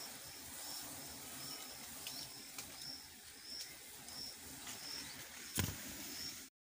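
A small bird's short, high chirp repeating steadily about twice a second. A single sharp knock comes about five and a half seconds in, and the sound cuts off abruptly just before the end.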